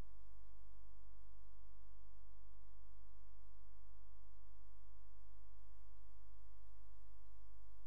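A steady electrical hum with a buzz of many even overtones, unchanging throughout, with no sound of the bicycle or traffic.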